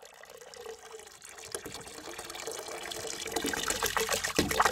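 Water running and splashing, fading in and growing steadily louder.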